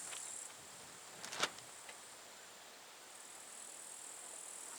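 Faint crickets trilling as a steady high-pitched buzz. It breaks off about half a second in and returns past the middle. There is one soft knock about a second and a half in.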